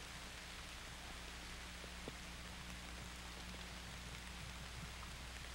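Faint, steady hiss of outdoor background noise with a low steady hum underneath and a few faint ticks, one about two seconds in.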